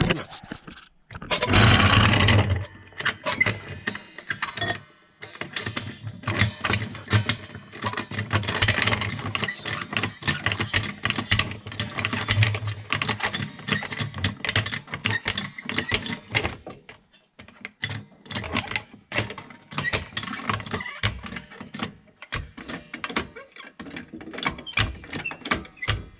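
Tools working on the car's rear suspension bolts: a loud burst about two seconds in, then long runs of rapid ratchet-like mechanical clicking and rattling, broken by short pauses.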